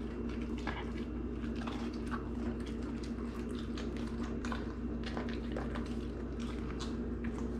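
Greyhound chewing and licking at food, faint irregular wet clicks and smacks, over a steady low electrical hum.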